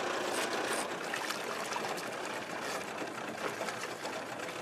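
Water splashing and sloshing as a hooked fish thrashes at the surface beside a boat.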